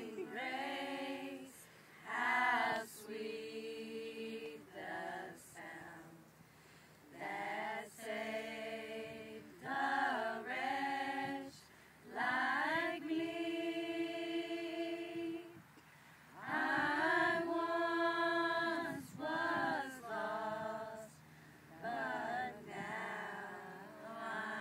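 A small group of women singing a worship song a cappella, in short phrases with a few long held notes.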